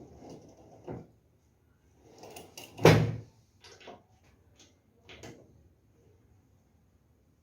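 Knocks and clunks from handling the worktable of a Forte G FG009 benchtop drill press while it is positioned and clamped tight. There are several short knocks, with one sharp knock about three seconds in the loudest.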